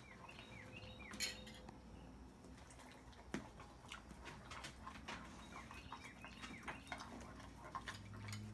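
A Doberman crunching and chewing a Mini-Wheats cereal biscuit: faint, irregular crunchy clicks and crackles.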